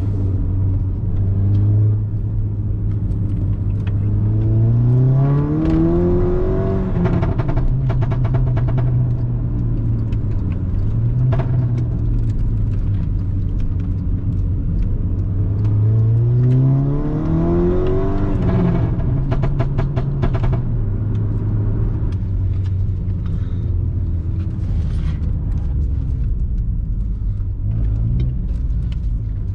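Stage 2 Mk6 Golf GTI's turbocharged 2.0 TSI engine pulling hard twice, its note rising steadily and then dropping off. Each pull ends in a quick run of sharp crackles.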